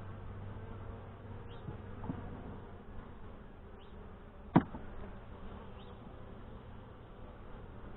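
Honey bees buzzing around an open hive during a frame inspection. A single sharp click or knock about halfway through stands out above the buzz.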